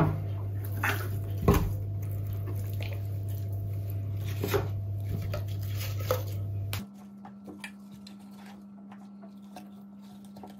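Hands pushing pieces of apple and quince into a raw duck's cavity: soft wet handling with a few light knocks, the loudest about a second and a half in. A steady low hum runs under it and gives way suddenly to a quieter, higher hum about seven seconds in.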